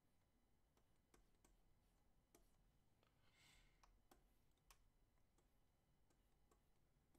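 Near silence with faint, irregular clicks and a brief scratchy stroke about three seconds in: a stylus tapping and drawing on a pen tablet.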